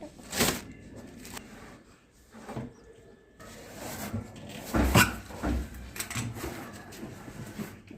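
Irregular knocks, clunks and scraping of things being handled and moved, with one heavy thud about five seconds in.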